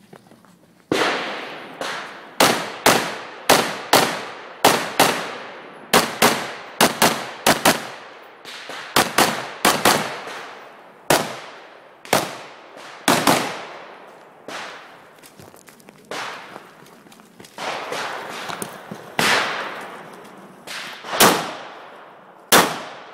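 AR-15 rifle shots fired one at a time in a long string, starting about a second in. The spacing is uneven, from rapid pairs and runs to pauses of a second or two, and each shot rings out with a short echo.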